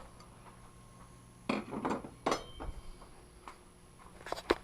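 A few light knocks and clinks from handling the table saw's parts. A small cluster comes about one and a half seconds in, and sharper taps come near the end.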